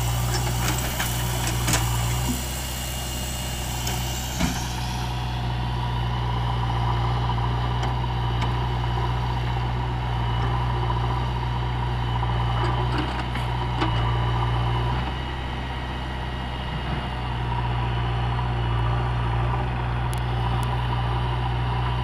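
Diesel engines of a Mahindra 595 DI tractor and a JCB 3DX backhoe loader running steadily at low revs, with a few light knocks.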